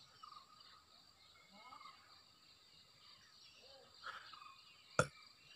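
Faint forest ambience: a steady high insect drone with short, repeated bird chirps. A single sharp click about five seconds in.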